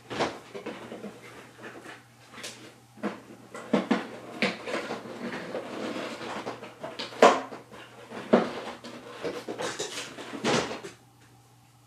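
A cardboard box and its packaging being opened and handled: irregular rustling with scattered knocks and clicks, stopping about a second before the end.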